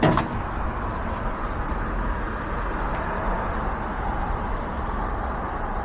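Steady background road-traffic noise, with a short click at the very start.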